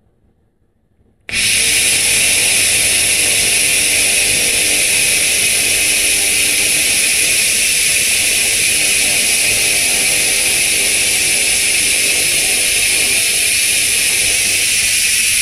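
Handheld laser cleaning head blasting rust off a rusty metal blade: a loud, steady, high-pitched hiss that switches on about a second in and stops abruptly at the end, as the beam strips the rust.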